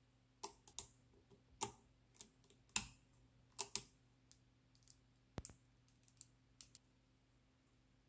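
Small magnetic balls clicking sharply against one another as they are handled and pressed into place, about a dozen irregular clicks.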